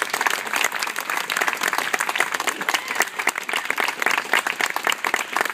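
A small crowd applauding, with many hands clapping steadily after a speech ends.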